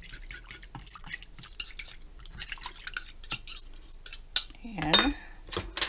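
A metal spoon and fork stirring a thin milky mixture in a glass bowl, with rapid, irregular clinks against the glass. About five seconds in, a brief pitched sound dips and rises, louder than the clinking.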